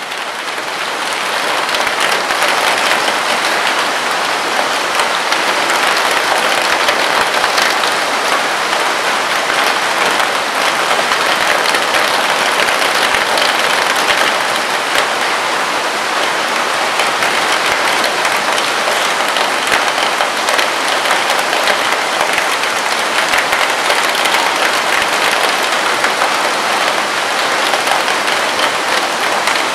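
Rain falling on a camping tent: a dense, steady hiss of countless drops on the tent fabric, fading in over the first second or two.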